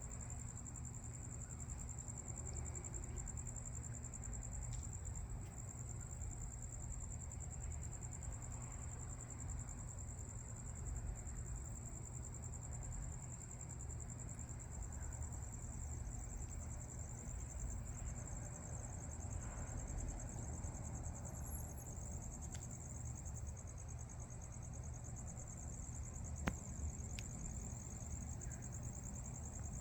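Crickets trilling in a steady, high, pulsing chorus, over a low, steady rumble. A single sharp click comes near the end.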